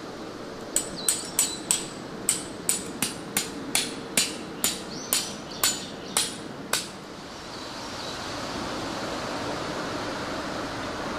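A hammer driving a metal tent stake into the ground: about fifteen sharp strikes, each with a short high ring, two or three a second, stopping about seven seconds in. A steady rushing noise follows.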